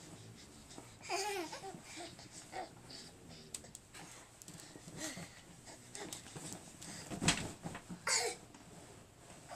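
Small children babbling with short bursts of voice, and one loud thump a little past seven seconds in.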